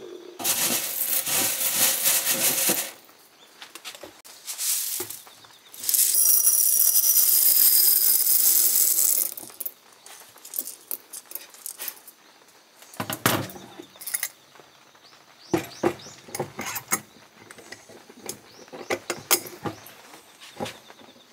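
Freshly roasted coffee beans rattling in a wire-mesh strainer in two loud spells of a few seconds each, then scattered clinks and clicks as the beans are scraped with a metal tool into a glass jar. A sharp click near the end fits the jar's metal clasp lid being shut.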